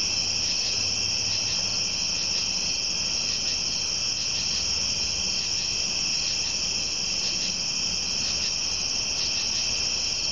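Steady, dense chorus of crickets, a continuous high-pitched trilling that does not change, with a faint low hum underneath.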